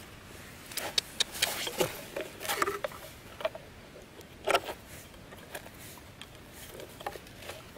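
Scattered light clicks and taps of a thin wooden stick being handled and set against two iron nails on a concrete slab, with fingers rustling over the stick; the sharpest tap comes about four and a half seconds in.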